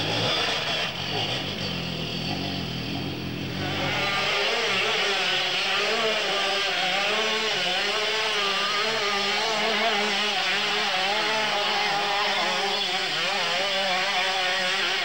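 Enduro motorcycle engines revving as the bikes ride up through woodland, their pitch wavering up and down with the throttle. About four seconds in, a rougher noise gives way to a clearer, steadier engine note.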